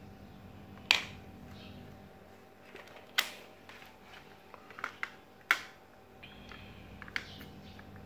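Sharp plastic clicks and taps from a small plastic USB-to-Ethernet adapter being handled and fumbled against a USB hub: three louder clicks a couple of seconds apart and a few lighter taps.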